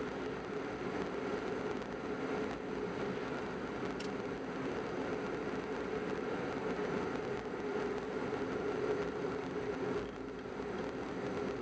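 Steady engine and tyre noise of a car driving along a paved road, heard from inside the cabin, with one faint click about four seconds in.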